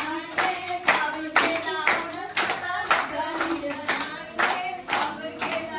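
Hand clapping in a steady rhythm, about two claps a second, keeping time with voices singing.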